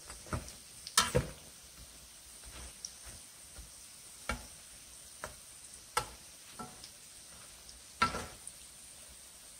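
Doughnuts frying in hot oil in a pan with a faint steady sizzle, and a metal slotted spatula knocking and scraping against the pan several times as they are turned, loudest about a second in and near the end.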